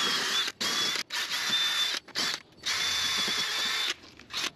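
Cordless drill spinning a wire wheel against the rusty wheel hub face, scrubbing the rust off. It runs in about five short stretches with brief stops between, a steady high whine over the scraping.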